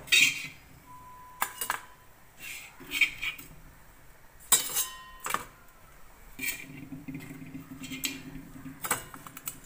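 Fried fish steaks being lifted off a griddle and set into a stainless-steel tin: a string of separate clinks and knocks of metal on metal, a couple ringing briefly.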